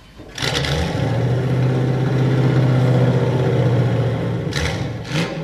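Car engine sound effect played back during a stage play. It starts suddenly and runs at a steady pitch, with a brief break near the end before it carries on.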